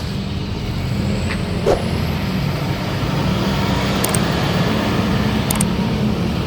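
Bus engine running with road noise, growing gradually louder, and a faint high whine rising in pitch early on. Two small high clicks come near the middle and later.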